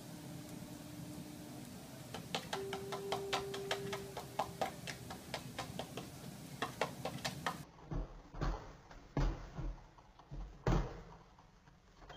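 A quick, irregular run of sharp clicks and taps with a brief steady hum partway through, then several loud dull thumps and knocks.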